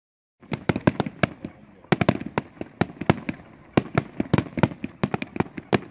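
Fireworks display: a rapid, irregular series of sharp bangs from bursting fireworks, several a second, beginning about half a second in.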